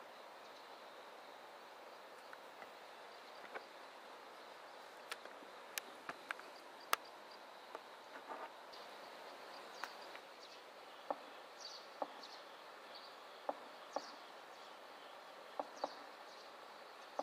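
Quiet outdoor ambience: a faint, steady high insect trill, with scattered short ticks and chirps.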